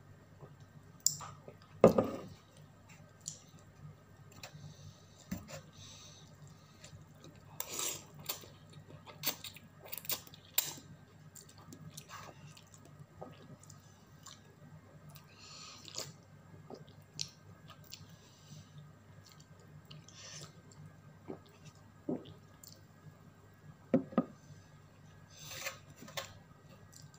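Eating sounds of a person having instant cup noodles: chewing and mouth noises, with scattered clinks and knocks of a glass and dishes on the table. The loudest is a single knock about two seconds in.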